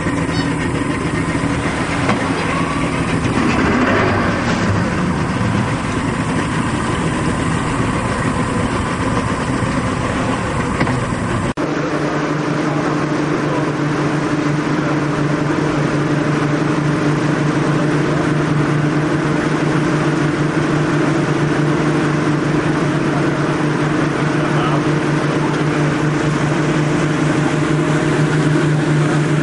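The boat's 200 hp outboard motor running steadily under way, with the rush of water and air. About twelve seconds in the sound cuts abruptly to a steadier, lower engine drone with a clear hum.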